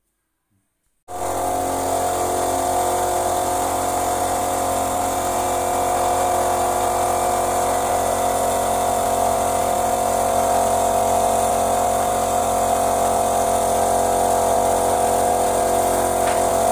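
Air compressor feeding a paint spray gun, running steadily with a constant motor hum and whine and a hiss of air. It starts abruptly about a second in, after dead silence.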